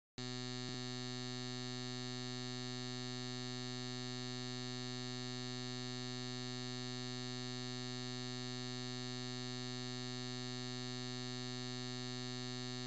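A steady electronic buzz: one unchanging low-pitched tone with many overtones. It switches on abruptly just after the start and cuts off abruptly at the end, with a faint click under a second in.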